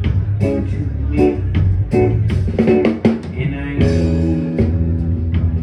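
Live band music with guitar, bass and drums, on a steady beat; long held bass and guitar notes come in about four seconds in.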